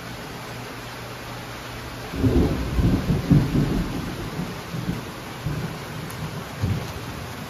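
Steady rain falling, with a rumble of thunder that breaks in about two seconds in, loudest for a second or two, then rolling away in weaker rumbles.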